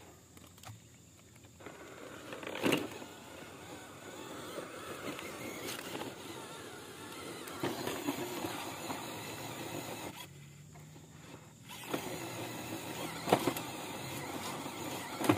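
Small electric motor and gearbox of an RC off-road crawler whining as it drives, easing off briefly about ten seconds in. A few sharp knocks come through, the loudest about three seconds in.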